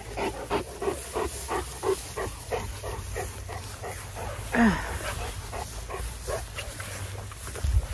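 Cane Corso dogs panting hard from exertion, a quick steady rhythm of about four breaths a second. About halfway through, one short low dog vocalisation drops in pitch.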